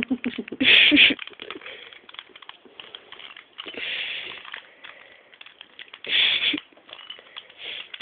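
Rubik's cube being turned quickly in the hands: a steady run of small plastic clicks and rattles as the layers twist. Three louder short rushing noises break in, about a second in, around four seconds and around six seconds.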